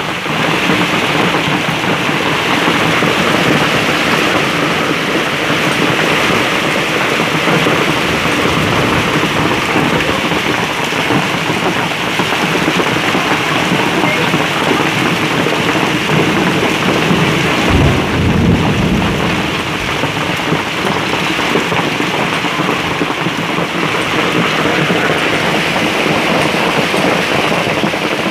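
Heavy hail mixed with rain pelting the ground, a steady dense clatter and hiss. A brief low rumble rises and fades about two-thirds of the way through.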